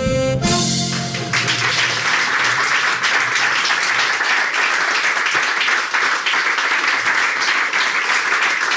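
A piece of music ends on a held chord about a second in, and a live audience breaks into steady applause.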